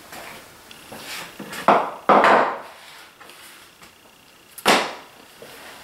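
Handling noises at a workbench as a sheet of paper is fetched and laid down: a few short rustles and scrapes, the loudest about two seconds in and a sharp one near five seconds.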